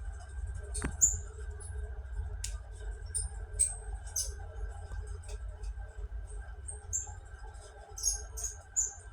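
Electric fan running with a steady hum and low rumble, over which come short, irregular high-pitched squeaks and chirps: the strange noise the fan is making.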